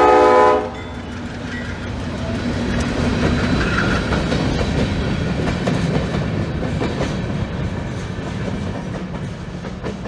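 A GE B36-7 diesel locomotive's horn cuts off just under a second in. Then a short freight train of a tank car and covered hopper cars rolls past with a steady rumble and the clickety-clack of wheels over rail joints, growing louder and then slowly fading as the last cars go by.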